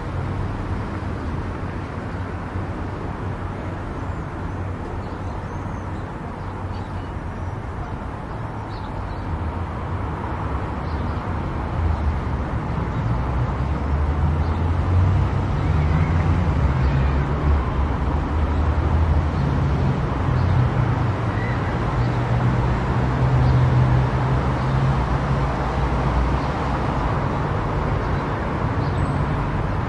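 A car driving on a road, with a steady engine hum and tyre noise. It grows louder about twelve seconds in and stays louder after that.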